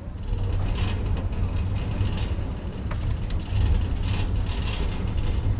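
A car ferry's hull breaking through broken sea ice: a continuous low rumble with irregular crunching and crackling on top.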